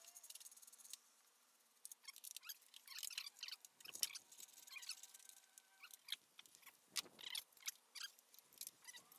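Faint scattered clicks, scrapes and light knocks of hand tools and fasteners being worked on a riding mower's engine cover, with two louder knocks about four and seven seconds in.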